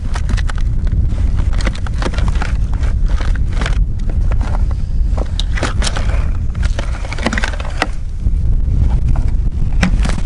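Steady low rumble on the microphone with frequent short scrapes and rustles as winter clothing and fishing gear are handled beside the ice hole.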